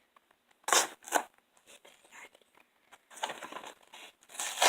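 Packaging being torn open and crinkled by hand: two short sharp rips about a second in, then a longer rustle near the end.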